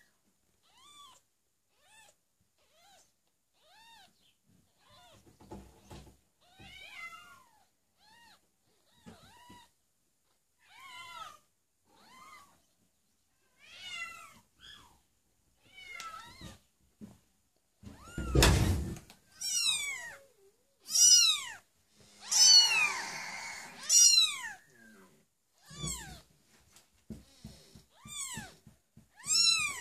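Week-old kittens mewing: a long run of short, high-pitched cries, each rising and falling in pitch, faint at first and much louder from about two-thirds of the way in. A loud thump sounds just before the louder cries begin.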